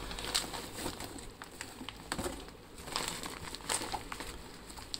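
A clear plastic bag of dry, crumbly dog food crinkling and rustling as it is handled and pulled out of a cardboard box, with a scatter of short crackles.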